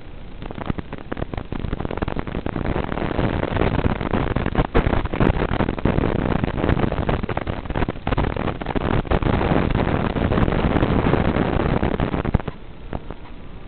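FPV quadcopter in flight: a steady, noisy rush of motors and propellers mixed with static. It grows louder about half a second in and drops suddenly near the end.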